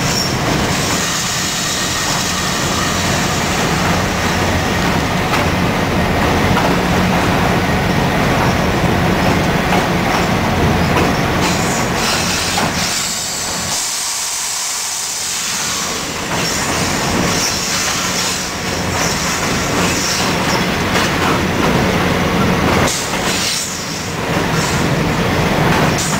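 Inside the cab of an EMD FL9 diesel locomotive under way: the EMD 567 prime mover runs steadily under wheel and rail noise as the train crosses a steel truss bridge. About halfway through, the low engine rumble briefly drops away for a couple of seconds, then returns.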